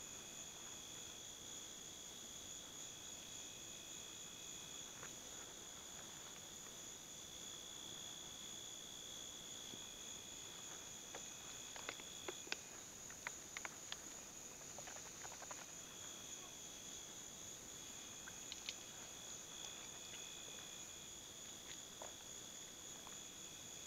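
Night insects singing in a steady, high-pitched chorus of several overlapping trills, one of which drops out for a few seconds about halfway through. A few faint small clicks and taps are heard in the middle.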